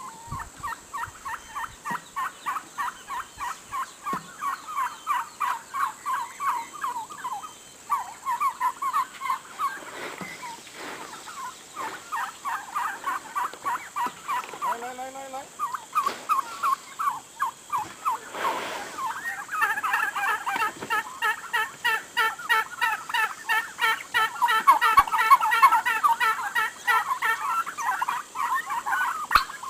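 Flock of 13-week-old turkey poults calling together: a steady stream of short high calls, a few each second, getting busier and louder in the second half.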